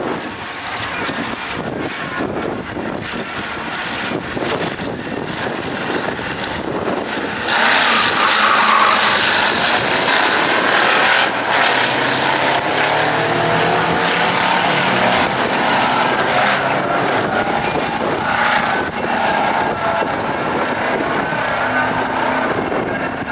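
Two drag-racing cars, a Reliant Scimitar and a Ford T-bucket hot rod, running at the start line, then launching at full throttle. The sound jumps suddenly louder about seven and a half seconds in, and the engine note then carries on down the strip, growing duller as they pull away.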